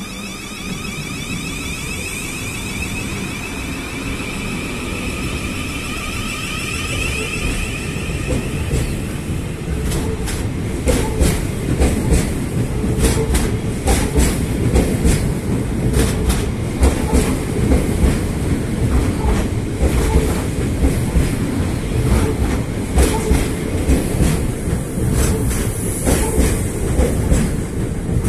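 Southeastern Class 707 (Siemens Desiro City) electric multiple units pulling out. Their traction motors whine for the first several seconds, then the wheels set up a fast, uneven run of clicks and knocks over the rail joints as the train gathers speed past.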